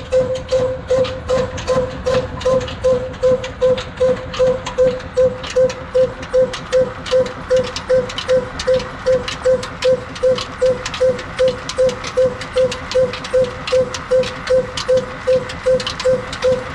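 Old single-cylinder Ruston diesel engine running slowly and steadily, its exhaust beating about twice a second over a fast clatter of sharp clicks, as it drives flat belts on a line shaft.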